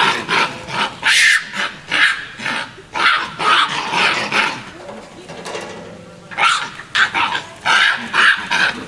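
Japanese macaques calling during a fight: a quick run of short, loud screeching calls, several a second, easing off about five seconds in, then starting again.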